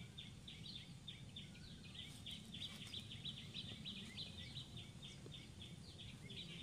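A small bird calling faintly in a long, even series of short high chirps, about five a second, over a low outdoor rumble.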